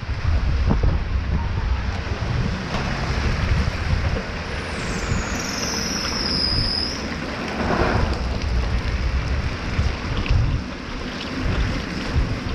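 Tropical-storm wind buffeting the microphone with rain, a steady rushing noise with heavy low rumble. A high whine that falls in pitch cuts through briefly around the middle.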